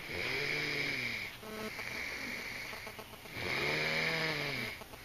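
A sleeping person snoring: two long snores about three seconds apart, each with a pitch that rises and then falls.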